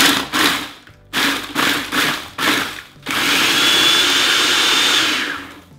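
Hamilton Beach food processor chopping Oreo cookies into crumbs: about six short pulses of the motor and blade with the cookies rattling in the bowl, then a steady run of about two seconds with a high whine before it stops.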